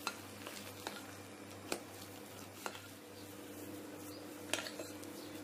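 A few light clicks and taps of a utensil against a glass bowl and a metal cake tin as chocolate mousse is folded and spread, over a faint steady hum.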